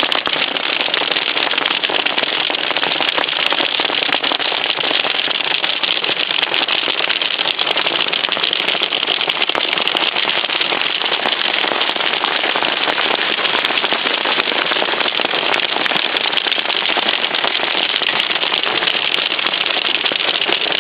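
Hail pelting down, a steady dense clatter of countless small hits.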